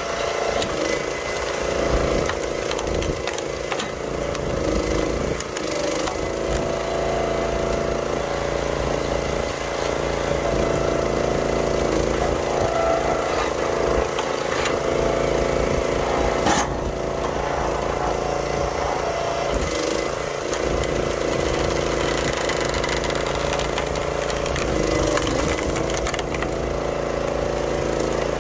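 Small gas engine of a 25-ton YardMax hydraulic log splitter running steadily while it splits maple rounds. Its note shifts a few times as the ram loads up against the wood, and there is one sharp crack about two-thirds of the way in.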